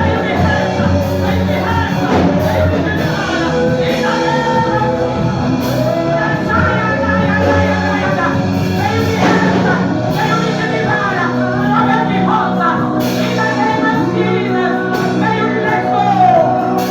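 Gospel worship singing with instrumental accompaniment, the melody carried over steady sustained low notes.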